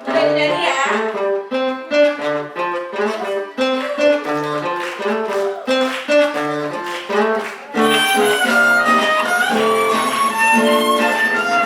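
Instrumental music from a live band, starting at once: plucked guitar notes in a steady rhythm over bass, with a fuller arrangement of sustained strings joining about eight seconds in.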